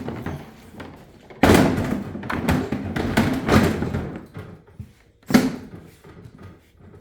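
Hard plastic Ryobi LINK tool box being set onto a stacked box and latched in place: a heavy thud about a second and a half in, a few seconds of plastic clattering, then a sharp knock near the end as it locks.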